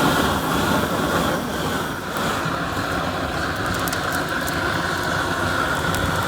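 Steady roaring rush of a gas flame singeing the feathers off plucked chickens, with a few faint crackles near the middle.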